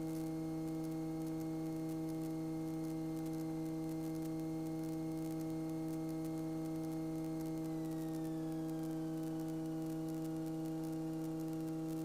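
Steady electrical hum on a light aircraft's intercom audio, with a faint higher whine that slides down in pitch about eight seconds in.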